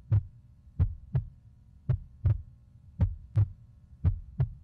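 Heartbeat sound effect: pairs of low thumps, lub-dub, repeating steadily about once a second.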